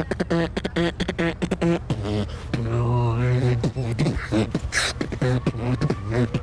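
A man beatboxing with his hand cupped to his mouth: a fast run of percussive mouth beats mixed with hummed tones, a held low hummed bass note in the middle, and a short sharp hiss about five seconds in.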